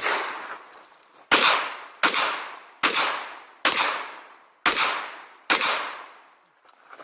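Shotgun fired seven times in quick succession, the shots about a second apart or less, each trailing off in a long echo.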